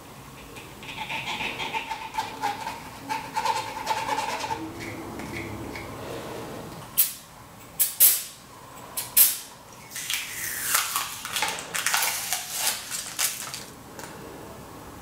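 Short hissing sprays from an aerosol can aimed at a copper-wire coil: a few quick bursts about halfway through, then a longer run of spraying. Before that, a squeaky, faintly pitched sound.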